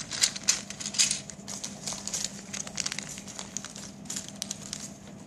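Clear plastic parts bags full of loose building bricks crinkling and rustling as a hand picks them up and handles them. It is busiest in the first two seconds, then thins out.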